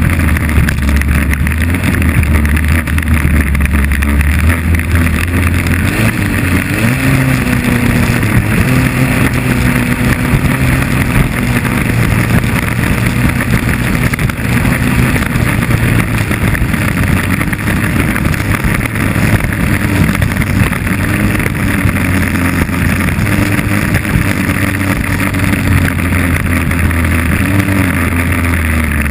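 2.5 Liter Stock inboard hydroplane racing at speed, heard onboard: its engine runs hard under heavy wind and water spray hiss. The engine note climbs about seven seconds in and settles back lower in the last third.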